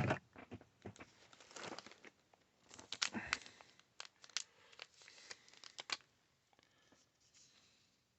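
Foil wrapper of a baseball card pack crinkling and tearing as it is pulled open, a run of irregular crackles that dies down after about six seconds.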